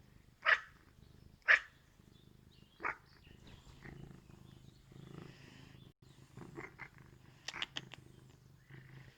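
Cat purring steadily while being petted, broken by two loud, short, breathy noises about half a second and a second and a half in, a weaker one near three seconds, and a few quick clicky sounds near the end.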